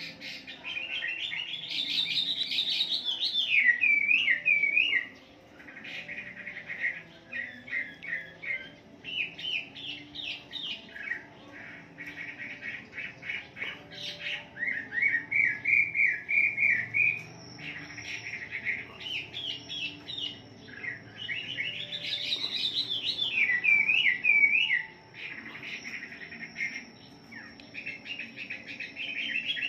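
Chinese hwamei (wambi) in full song: a loud, varied run of quick whistled phrases and warbling trills, delivered in bursts with short pauses between them.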